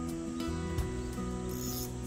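Background music with held notes changing pitch every fraction of a second, and a short hiss near the end.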